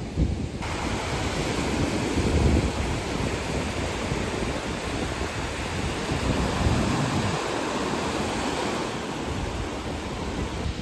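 Black Sea waves breaking and washing onto the shore, surging louder twice, about two seconds in and again around seven seconds, with wind buffeting the microphone.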